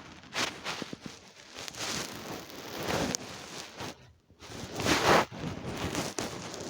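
A person snoring in sleep: a series of noisy breaths, the loudest about five seconds in.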